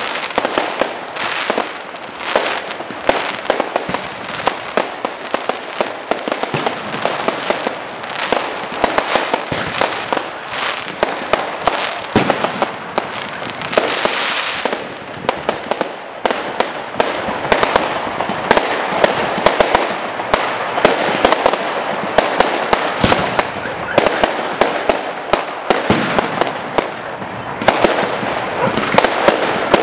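Fireworks display: a dense, continuous barrage of cracks, bangs and pops from aerial fireworks bursting overhead, with a brighter hissing crackle about halfway through.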